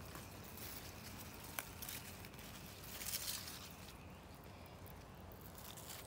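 Faint rustling of radish leaves and soil as a radish is pulled out of the bed by hand, in a few soft swells of hiss, with a light click about a second and a half in.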